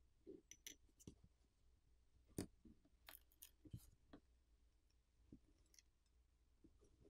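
Faint, scattered clicks and taps of a pry tool working a Google Pixel 8's screen loose from its frame, the strongest about two and a half seconds in and a quick cluster a second later.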